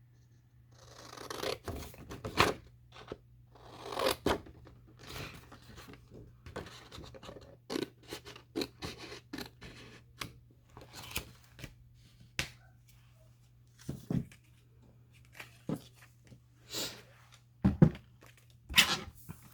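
Paper scraps being handled and shuffled: irregular rustles, scrapes and light taps of paper on a work surface.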